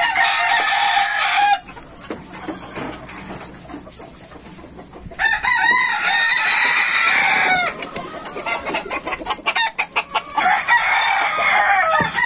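Gamecock roosters crowing three times: one loud crow right at the start, another about five seconds in and a third near the end, with quieter clucking between them.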